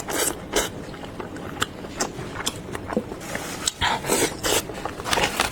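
Close-miked chewing of soft, chewy braised wheat gluten and pork: irregular wet mouth smacks and small clicks.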